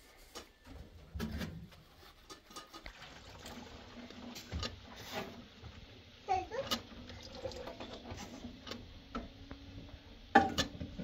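Water running from a kitchen tap into a stainless-steel sink, with scattered sharp clinks of dishes and metal utensils.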